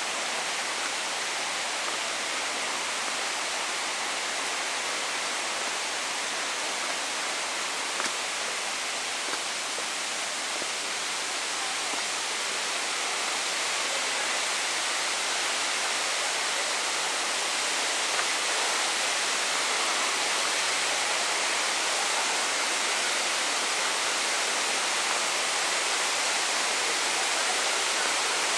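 Rushing water from a stream or waterfall: a steady hiss that grows slightly louder over the second half.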